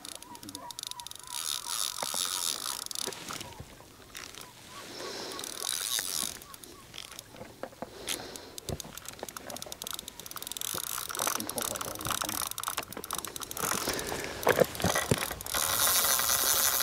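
Fishing reel being wound in, its gears and ratchet clicking rapidly in several spells.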